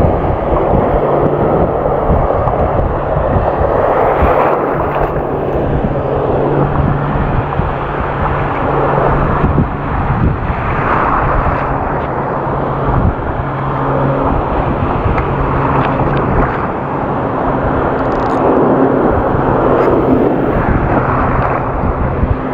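Shallow surf washing and foaming over a reef flat, a loud steady rush that swells and eases, with a low steady hum beneath it.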